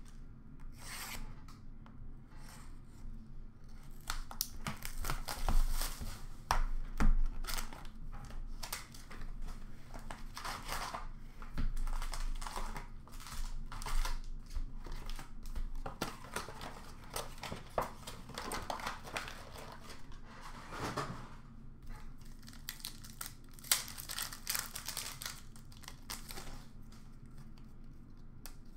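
Hockey card pack wrappers being torn open and crinkled by hand, in irregular crackling bursts, with cards slid and shuffled between them.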